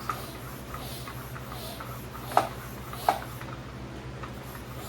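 Light clicks and knocks from a bike pump head being handled and fitted onto an inner tube's Schrader valve, two sharper knocks about two and a half and three seconds in, over a steady low hum.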